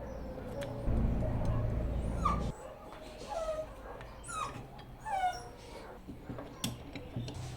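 A dog whining in four or five short whimpers that fall in pitch. Under the first part a low steady hum cuts off abruptly about two and a half seconds in.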